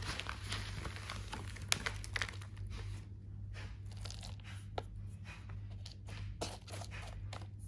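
Dry sphagnum moss crackling and plastic and paper packaging crinkling as a hand pulls moss from its bag and presses it into a thin plastic orchid pot. Dense crackling for the first few seconds, then sparser clicks.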